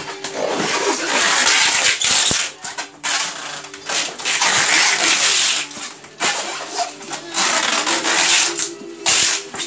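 Brown packing tape pulled off its roll in several long, noisy strips of a second or two each, sealing styrofoam boxes.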